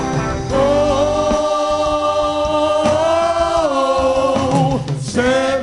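Gospel worship music: a singer holds long, sliding vocal notes over a live band, with choir voices.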